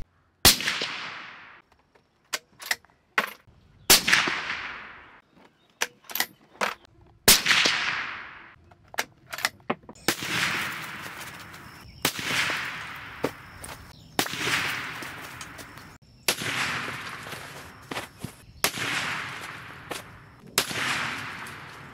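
Suppressed .308 Winchester bolt-action rifle shots: about nine sharp cracks every two to three seconds, each followed by a rolling tail that fades over a second or so. A few short faint clicks fall between the first few shots.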